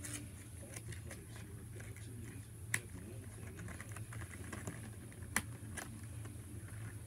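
Paper and markers being handled: a scatter of small taps and clicks, with two sharper clicks about three seconds and five and a half seconds in.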